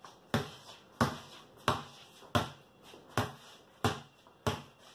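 A basketball dribbled on a concrete garage floor: seven sharp bounces, evenly spaced about two-thirds of a second apart.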